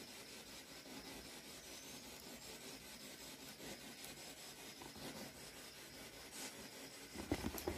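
Faint rubbing and rustling of a handheld camera being moved, over a low steady hiss, with a few louder knocks and scrapes near the end.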